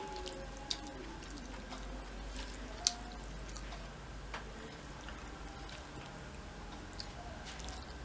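Wet smacking and clicking of someone eating rice and curry by hand and chewing, with a handful of sharp clicks scattered through, over a low steady hum.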